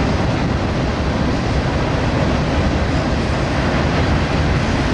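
Freight train's cars rolling past along the track, a steady rumble with rail noise that does not let up.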